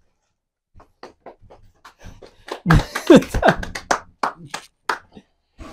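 Scattered short taps and slaps from people moving, with a brief voiced exclamation falling in pitch about three seconds in.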